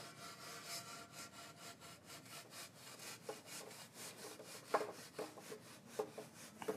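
Metal screed rule scraped back and forth along fresh cement render, levelling the rough coat against the guide strips: a faint, rapid rasping in short sawing strokes, with a few sharper clicks in the second half.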